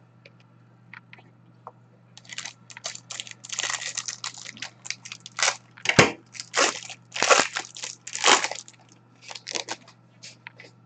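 Crinkling and tearing of clear plastic trading-card pack wrappers being ripped open and handled, in irregular rustling bursts from about two seconds in to near the end.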